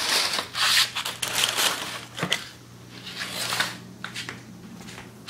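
Rustling and crinkling as parts and their packaging are handled, in two spells, with a sharp click a little over two seconds in, over a faint steady hum.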